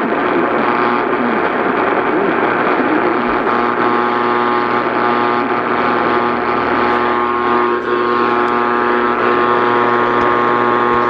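Emergency alert tone: a steady, buzzy electronic tone of many pitches sounding together over a layer of hiss, unchanging throughout.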